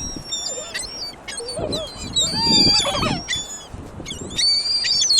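A flock of gulls calling, with many short, high cries overlapping and a few louder, lower squealing cries in the middle.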